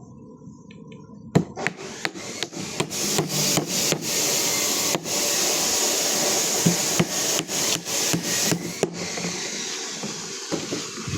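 Building work with tools: a loud rasping, scraping noise with sharp irregular knocks like hammer blows, starting about a second in and easing off near the end.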